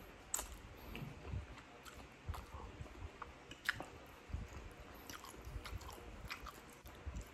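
Close-up mouth sounds of eating spaghetti: chewing and slurping noodles, with scattered small wet clicks and smacks.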